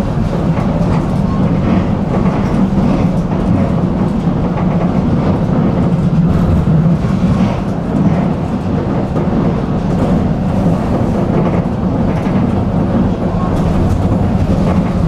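Tram in motion, a steady low rumble of wheels on the rails.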